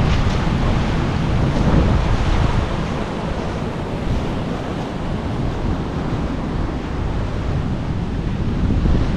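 Ocean surf washing over the shore, swelling and easing, with wind buffeting the microphone.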